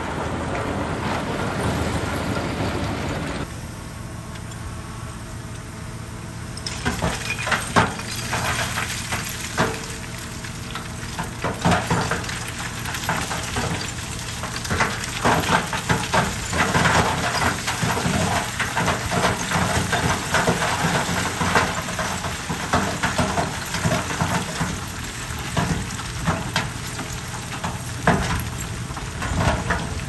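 Bulldozer's diesel engine running steadily while gravel crunches and clatters as it is pushed. The crackling clatter thickens from about seven seconds in.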